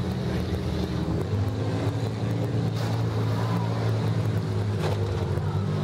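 Several demolition derby minivan engines running together in a steady low rumble, with two sharp knocks about three and five seconds in.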